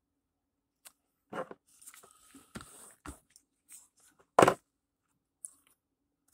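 A cardboard trading-card hobby box being moved and handled on a table: scattered rustling and light clicks, with one sharp knock about four and a half seconds in.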